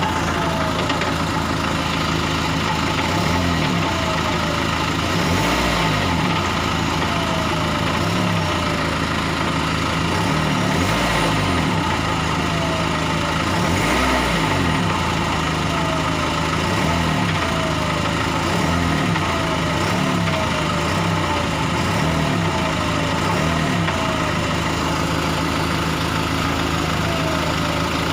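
Renault Laguna II engine idling with a knock that the owner puts down to the flywheel. The idle wavers slightly, dipping and recovering every few seconds.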